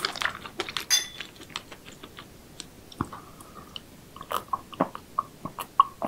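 A person chewing and biting seafood, close up: a dense run of crisp crunching clicks in the first second or so, then sparser scattered clicks.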